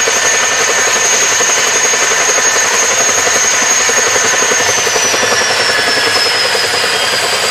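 Boeing CH-47 Chinook tandem-rotor helicopter running on the ground, rotors turning: a loud rush with a rapid rhythmic blade chop under the high whine of its twin turboshaft engines. The whine begins to fall in pitch a little over halfway through.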